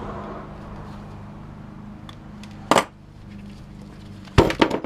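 Tools and scrap parts being handled on a workbench: a single sharp click near the middle and a quick run of clicks and knocks near the end, over a low steady hum.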